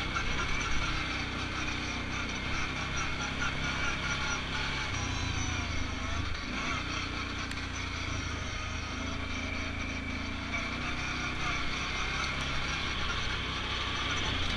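Polaris quad's engine running steadily under way, its pitch shifting a little about halfway through.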